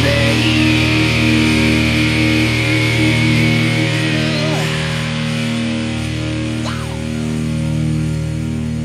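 Glam metal song playing, with electric guitars over a steady low bass line. A long high note is held for the first few seconds.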